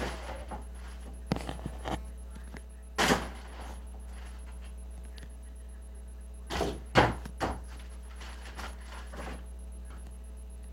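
A basketball thudding against hard indoor surfaces: single thumps a few seconds apart, with three in quick succession about seven seconds in, the middle one the loudest, over a low steady hum.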